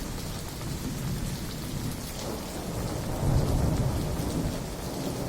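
Steady rain falling, with a low roll of thunder that builds about two seconds in, peaks near the middle and dies away.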